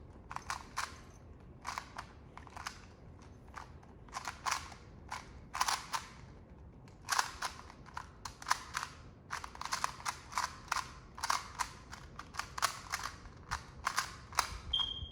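Plastic Rubik's-type speed cube clacking as its layers are turned quickly by hand, in irregular runs of sharp clicks that come thicker and faster in the second half.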